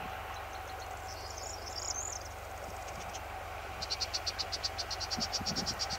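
High chirping: a short warbled phrase about a second in, then from about four seconds a fast, even trill of about eight chirps a second. Under it is the steady low hum of an approaching narrow-gauge diesel train.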